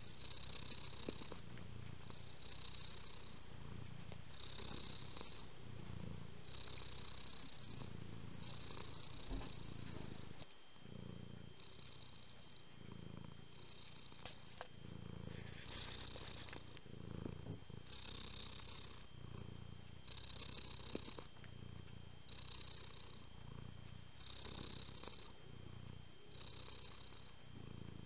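Domestic cat purring, a continuous rumble that swells and eases with each breath, about one cycle every two seconds.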